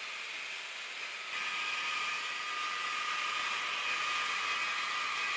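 Large water-cooled circular saw cutting volcanic rock into blocks: a steady hiss of spraying water and grinding, with a steady whine that comes in louder about a second in.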